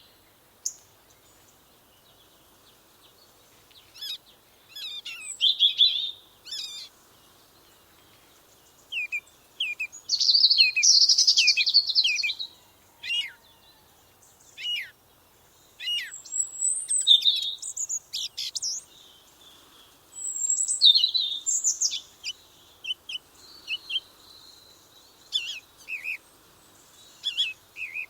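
Songbirds chirping and singing in short, high-pitched phrases and trills separated by brief pauses, with a dense run of song about ten to twelve seconds in.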